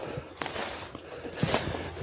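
Footsteps crunching through dry grass and scrub with rustling, and a couple of sharper crunches about half a second and a second and a half in.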